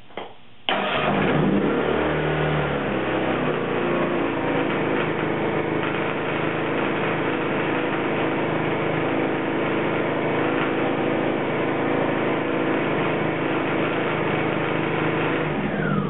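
Lifan ESi2600iER inverter generator started from its control panel, catching almost at once with a sudden loud onset, then running at a steady speed; its engine note settles in the first few seconds.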